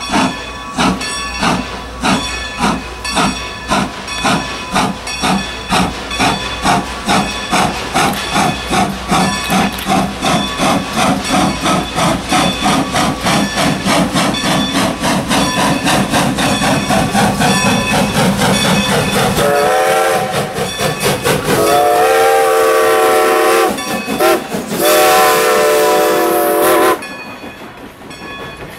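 Strasburg Rail Road No. 90, a 2-10-0 steam locomotive, working hard with sharp, regular exhaust chuffs that quicken as it gathers speed. From about two-thirds in, its whistle blows long, long, short, long, the grade-crossing signal, and its passenger cars then roll past more quietly.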